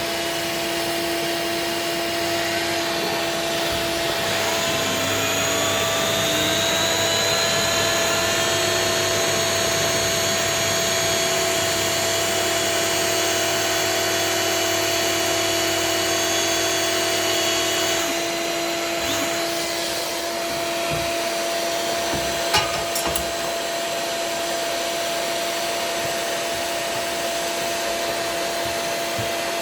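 Hand-held hot-gas extrusion welder running, its hot-air blower humming steadily. The extruder drive motor starts about two seconds in, rises in pitch, runs steadily, and stops suddenly about eighteen seconds in. A single sharp click follows a few seconds later.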